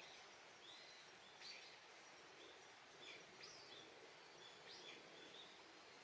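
Faint, scattered bird chirps, short high calls about once a second, over a low steady hiss of outdoor background.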